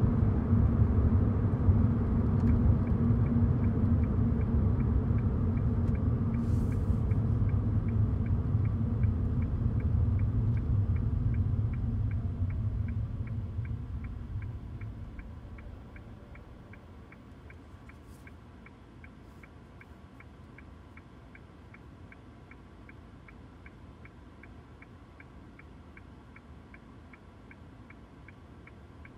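Inside the cabin of a 2018 Toyota Auris: low road and drive rumble that dies away about halfway through, leaving a quiet hum. A turn-signal indicator ticks steadily at about two to three ticks a second throughout.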